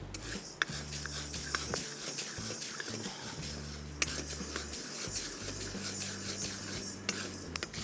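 Wooden spatula stirring urad dal as it dry-roasts in a stainless-steel kadai, the lentils rustling against the pan, with a few light clicks of the spatula on the steel over a steady low hum.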